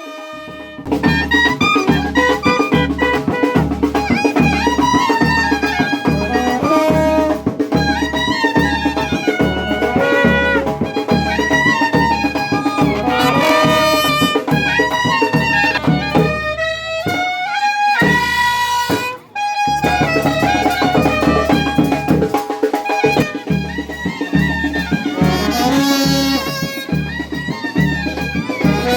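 Music: a melody over a steady drum beat, starting about a second in and briefly dropping out about two-thirds of the way through.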